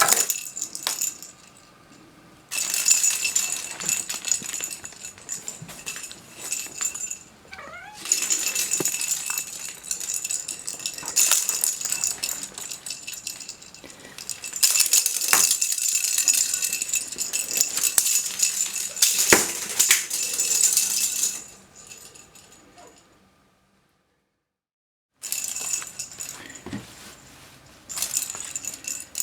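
A rattle ball rattling in bursts as a cat bats and rolls it about, with short pauses between bouts and a brief gap of complete silence near the end.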